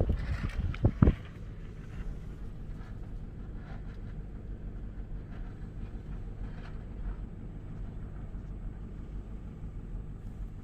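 Strong gusting wind buffeting the microphone, loud for about the first second, then dropping to a steady low rumble.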